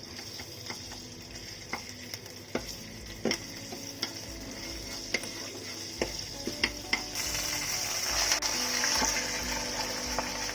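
Pomfret fish frying in hot oil in a pan, a steady sizzle with a utensil clicking and knocking against the pan every so often. The sizzle grows louder about seven seconds in.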